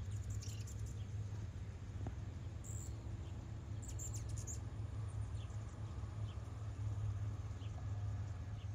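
Hummingbirds chipping: a few short, very high chirps, with a quick run of them about four seconds in, over a steady low rumble.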